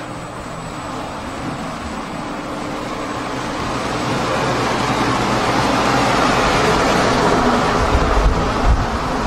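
Steady rushing air noise with a faint low hum under it, growing gradually louder, then wind buffeting the microphone near the end.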